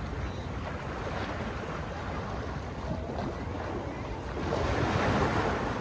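Ocean surf washing in steadily, with wind rumbling on the microphone. A wave surges louder about four and a half seconds in, then eases.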